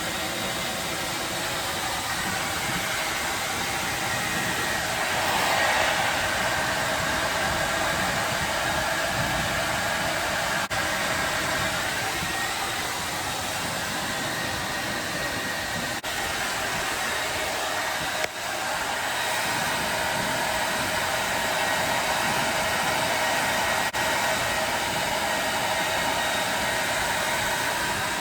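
Hand-held hair dryer running steadily: an even rush of blown air with a faint steady motor whine, broken by a few very brief dropouts.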